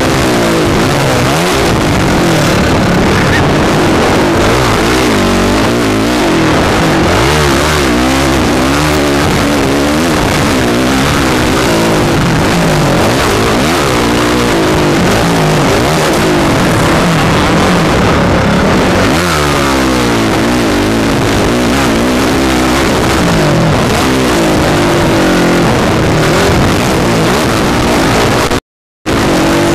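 Honda motocross bike's engine revving hard, the pitch climbing and falling again and again as the rider works the throttle and gears around the track. Loud wind rush on the onboard microphone lies over it. The sound cuts out briefly near the end.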